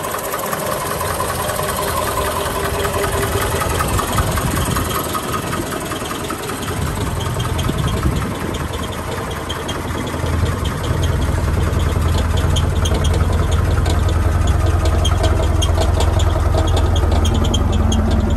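1976 Pontiac Astra's four-cylinder engine idling steadily, heard from underneath the car; the low exhaust hum grows louder and fuller about halfway through.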